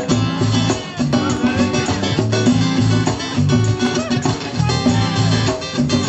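Live band music: guitar over a bass line in a steady rhythm.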